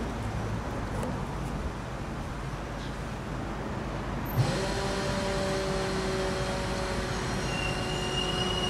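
Steady low hum of motor traffic. About four seconds in there is a sharp click, after which several steady high tones join the hum.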